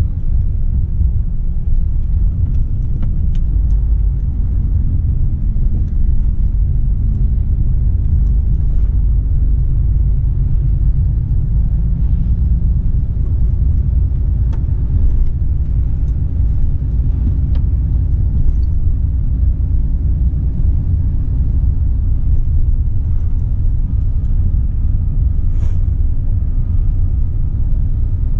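Volvo FH 460 truck's six-cylinder diesel engine and road noise making a steady, low rumble while it drives along at an even pace, heard from inside the cab.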